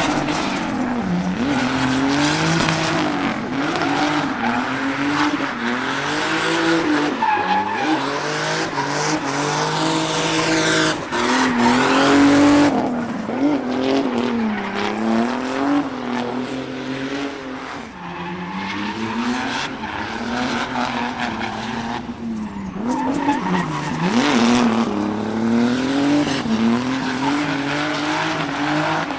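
C5 Corvette's V8 engine revving up and falling back again and again while the car drifts, tyres squealing and skidding throughout. The tyre noise is heaviest about ten to twelve seconds in.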